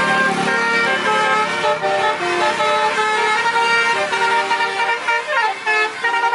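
Bus telolet horn, a set of multi-tone air horns, playing a tune of held notes that step up and down, with a few quick sliding notes about five seconds in.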